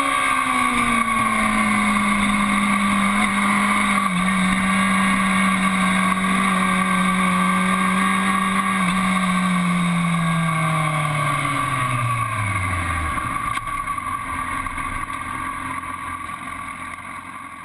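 Aprilia Tuono APRC's V4 engine running at steady revs, then the revs fall away as the bike slows, about two thirds of the way through. The sound then fades out.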